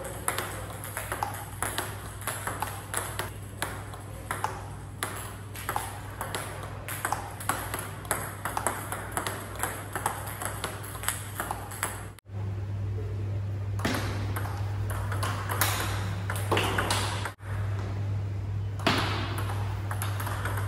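Table tennis ball hits: the plastic ball clicking off a short-pimpled rubber bat and bouncing on the table in a steady rally of punch strokes, about two hits a second, with fewer, more spaced hits after a cut partway through. A steady low hum runs underneath.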